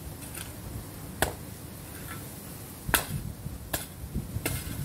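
A long-handled garden tool striking and scraping hard, dry garden soil: three sharp strikes, the last two closer together, then a short scrape near the end.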